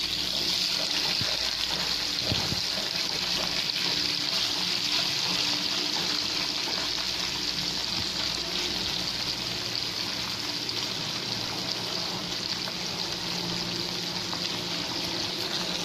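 Small tangra catfish frying in hot oil in a pan: a steady sizzle as the fish are laid into the oil.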